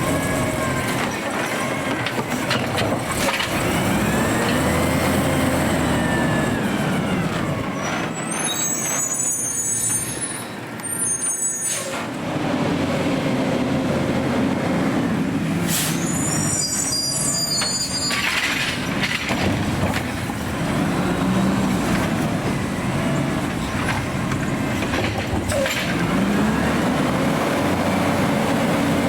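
AutoReach automated side-loader garbage truck working: its engine revs up and back down several times as it drives the hydraulics, with short high-pitched squeals and air-brake hisses between.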